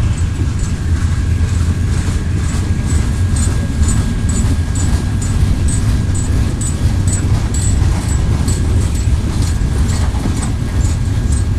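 Freight train cars (tank cars and covered hoppers) rolling past: a steady, heavy low rumble with a regular clicking of wheels over the rail joints, about three clicks a second.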